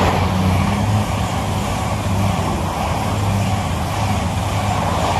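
East Midlands Railway Class 222 Meridian diesel multiple unit passing close by at speed: a steady rush of wheels and air over the low hum of its underfloor diesel engines, easing slightly near the end.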